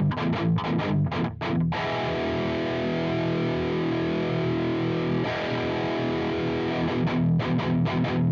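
Electric guitar through a JOYO Dark Flame distortion pedal, a Revv G3 clone, playing a high-gain riff. Short, choppy chords give way to two long ringing chords about two seconds in, and the choppy rhythm returns near the end.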